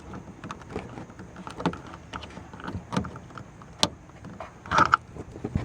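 Irregular plastic clicks and knocks as a car tail lamp is pulled free of the body and its wiring connector is unplugged, with a louder cluster of knocks about five seconds in.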